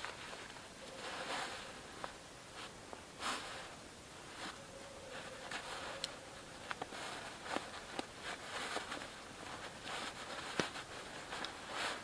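Rustling of a tarpaulin rain cape being handled, then a rope ridgeline being pulled taut and tied around a tree trunk, with scattered sharp clicks and rustles.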